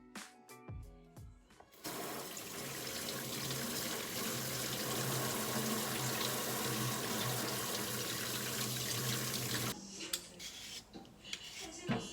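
Water running steadily from a tap into a sink. It starts about two seconds in and shuts off sharply about ten seconds in.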